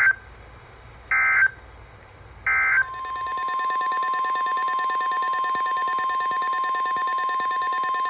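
Three short Emergency Alert System digital data bursts about a second apart, the end-of-message code closing the spoken warning. About three seconds in, a steady single-pitch attention tone starts and carries on, the alert signal that comes before the next warning.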